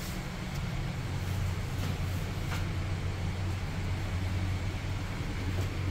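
Steady low mechanical hum, with two faint clicks about two seconds in.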